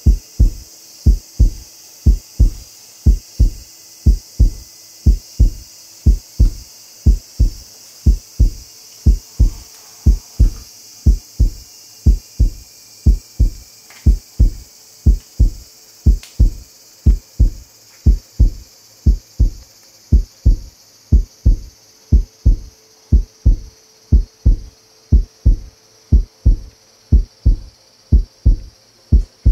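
Heartbeat sound effect: low, evenly spaced thumps, about two a second, over a faint steady drone.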